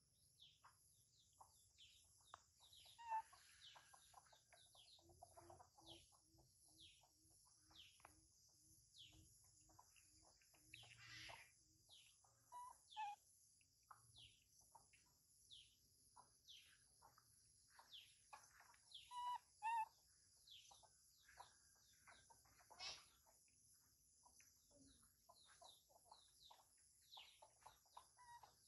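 Faint outdoor animal ambience: a steady high insect hiss with a pulsing whine above it, and many short falling chirps throughout. A run of soft, evenly spaced clucks about two a second comes a fifth of the way in, and a few louder calls stand out, two close together about two-thirds of the way through.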